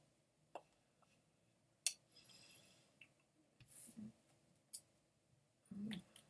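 Near silence with a few faint, scattered sharp clicks, the sharpest about two seconds in, and short soft rustles.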